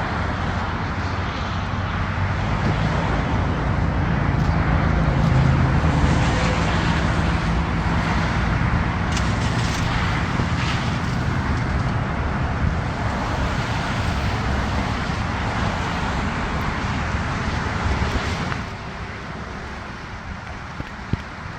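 Highway traffic: a vehicle's engine passes, loudest about five seconds in, over steady tyre and road noise that drops off near the end.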